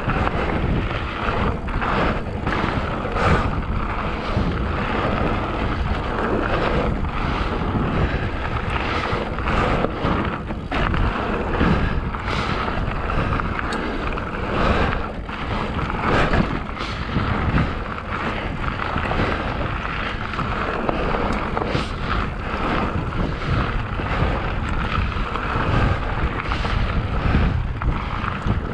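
Hardtail mountain bike riding over a rough trail: steady tyre and rolling noise with frequent knocks and rattles from the bike, and wind buffeting the microphone.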